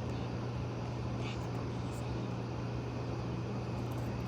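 A steady low hum with an even hiss, with a few faint small clicks or rustles.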